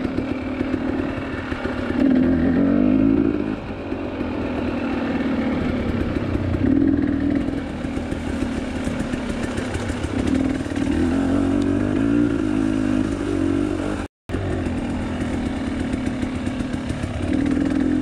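KTM 300 TPI two-stroke dirt-bike engine running on rocky single track, its pitch rising and falling in several surges as the throttle opens and closes. The sound drops out for a split second about two-thirds of the way through.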